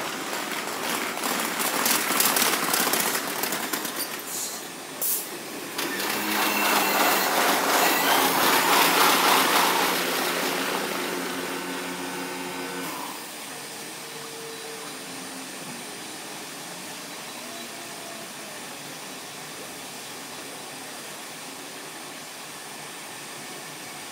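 Kintetsu electric train on the far tracks: a rising rush of running noise with rattling, then a louder stretch with several steady tones that cut off together about thirteen seconds in as the train comes to a stand, leaving a steady, quieter hum.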